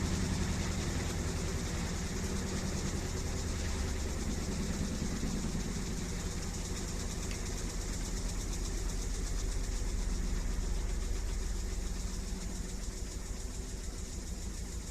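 Panasonic NA-F8AE9 fully automatic washing machine in its spin cycle: a low motor and drum hum with a high-pitched metallic noise over it, like metal rubbing at high speed. This is an abnormal noise that has developed during spin; its cause is unknown.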